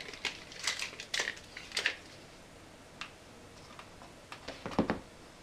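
Scattered light clicks and taps of objects being handled on a workbench, with a quick cluster of louder knocks near the end.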